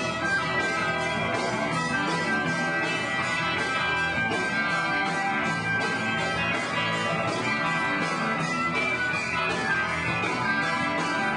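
A rock band playing live: guitars and drums at a steady beat, loud and unbroken.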